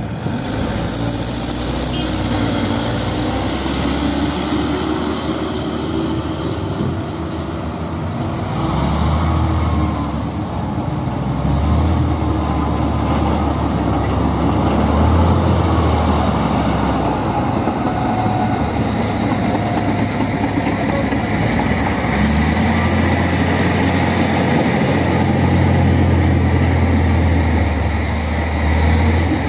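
Diesel engines of dump trucks and a crawler bulldozer running under load, a low rumble that swells and eases several times.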